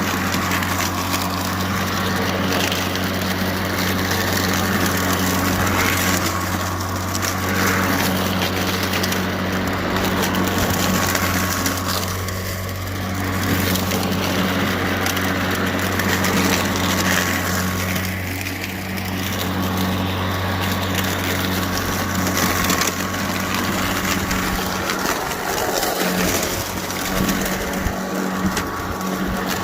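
Greenworks 80V battery-powered push mower running in mulching mode: a steady electric motor and blade hum with the noise of leaves and grass being chopped up under the deck.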